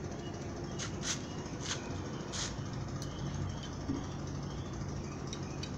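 A steady low mechanical hum, like a running engine, with short rustling scrapes from hands handling the materials: four in the first two and a half seconds, two fainter ones near the end.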